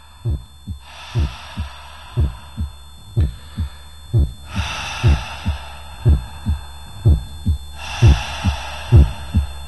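Heartbeat sound effect: paired low thumps, about one double beat a second, growing steadily louder over a low steady drone. Three slow swells of soft hiss rise and fall above it.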